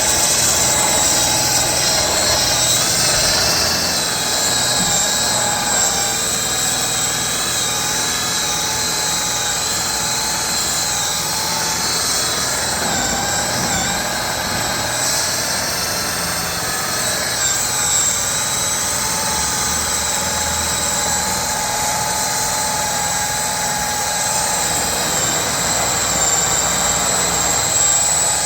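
Electric drill spinning a foam buffing ball, polishing an oxidized aluminum threshold; the motor whines steadily.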